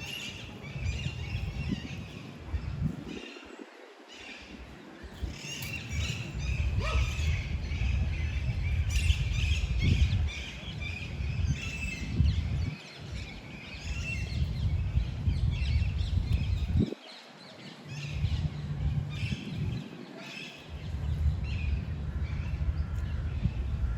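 Wind buffeting the microphone in gusts as a low rumble, with small birds chirping throughout.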